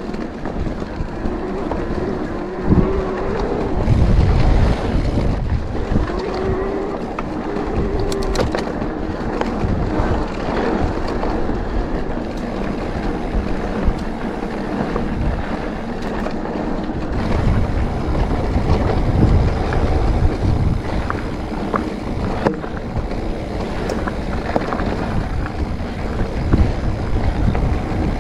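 Wind buffeting the camera microphone while an electric mountain bike's tyres roll over a dry dirt singletrack, with the frame and parts rattling on the bumps. A faint whine comes and goes a couple of times in the first few seconds.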